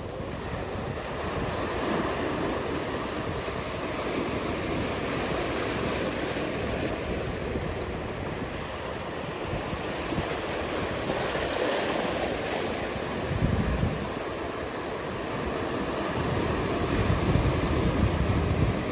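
Ocean surf washing steadily on the beach, with wind buffeting the microphone in low rumbling gusts twice in the latter part.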